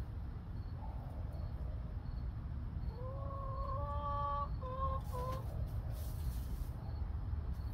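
Hen calling: one drawn-out note about three seconds in, rising slightly as it starts, followed by two short notes, over a low steady rumble.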